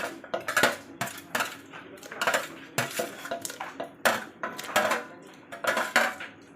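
Kitchen utensils clinking and knocking against a cooking pot and dishes, a string of irregular sharp clicks about two or three a second, as crushed ginger is added to the pot.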